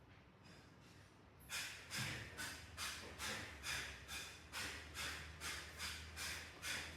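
A cat making soft rhythmic rasping sounds close to the microphone, about two a second, starting about a second and a half in, over a low steady hum.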